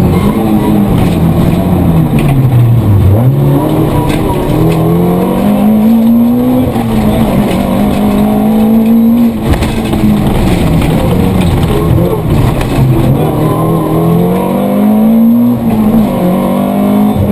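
Rally Corsa 1600's four-cylinder engine heard from inside the cabin under hard driving. The revs climb and drop sharply at the gear changes, and fall away slowly about three seconds in as the car slows.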